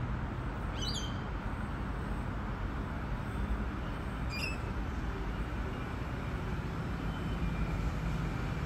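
Steady low rumble of vehicles around a suburban railway station, with two short rising bird chirps about a second in and again about four seconds in.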